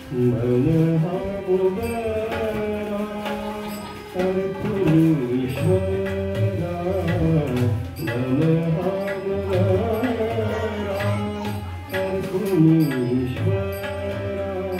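Marathi devotional song (abhang) performed live: a solo voice sings a gliding melody over harmonium, with hand drums and small cymbals keeping a steady beat.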